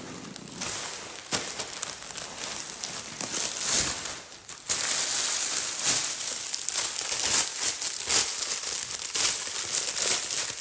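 Plastic packaging crinkling and rustling as items are handled and unpacked by hand, louder from about halfway through.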